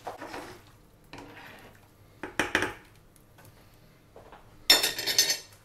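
Pots and utensils clattering at a stove: a few knocks about halfway through, then a short, loud rattle near the end.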